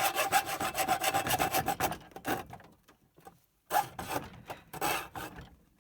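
Hand saw cutting through a router's hard plastic case. Quick, short, regular rasping strokes for about two seconds, then a pause and a few slower, longer strokes.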